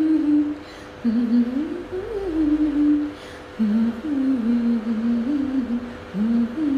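A woman's voice humming the melody of a Malayalam song without words, in four short rising-and-falling phrases.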